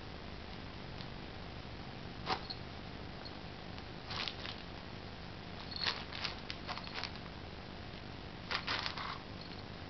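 Nylon fabric of a cat play tunnel rustling in short bursts, about four times, as a kitten paws and pushes into it.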